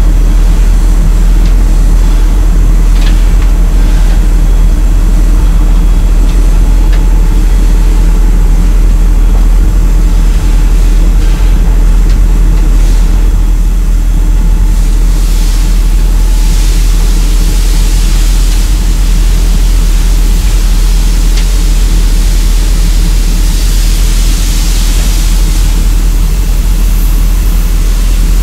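A loud, steady low drone with a few steady hum tones over it. A hiss builds in the high end from about halfway through and is strongest near the end.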